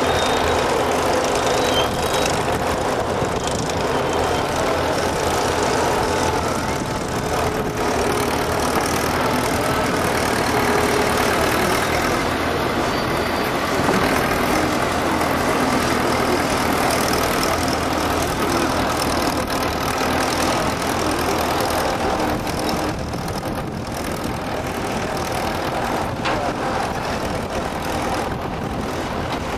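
Menck M40 cable-operated backhoe excavator working, its engine running steadily as it digs and swings the bucket.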